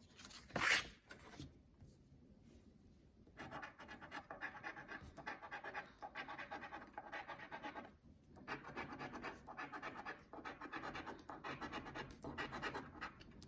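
Scratching the latex coating off a lottery scratch-off ticket in quick, rapid strokes, in two runs with a short pause about eight seconds in. A brief louder noise comes just before, about half a second in.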